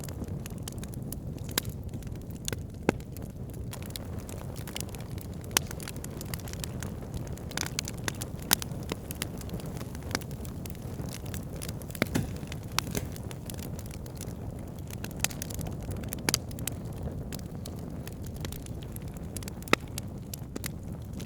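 Campfire of burning wood crackling, with a steady low rumble of the flames and scattered sharp pops at irregular intervals.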